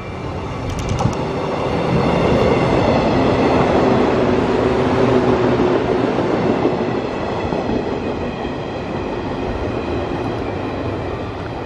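113 series electric multiple unit running through the station without stopping. Its wheel-on-rail running noise builds over the first two seconds, stays loud while the cars go by, then fades as the train moves away.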